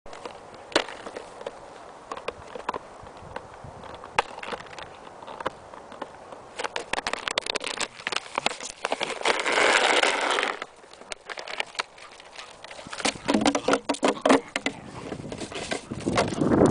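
Plastic bottle crackling and clattering as a Bedlington Terrier noses, paws and mouths it on frosty grass: scattered sharp clicks, with a longer, denser stretch of crinkling about nine seconds in and a quick run of clicks a few seconds later.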